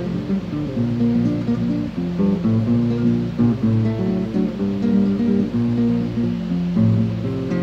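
Background music on acoustic guitar: picked notes and strummed chords over a low bass line, playing steadily without a break.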